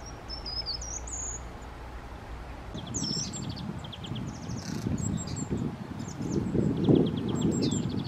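Treecreeper giving high, thin calls, then from about three seconds in several short, fast trills of evenly spaced notes. A low rustling noise runs underneath the trills.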